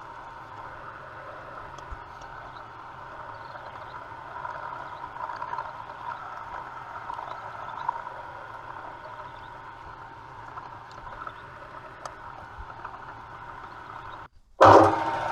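Drilling machine running with a small twist drill cutting a radial hole through a steel ring: a steady motor hum with cutting noise, a little louder for a couple of seconds after about four seconds in. Near the end it cuts off abruptly, and a louder burst of machine noise starts and then settles.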